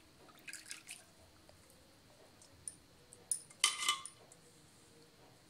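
Water squelching and dripping as a handful of soaked grated potato is squeezed out over a steel bowl of water, in a few short bursts. The loudest burst comes about two-thirds through and carries a brief metallic ring.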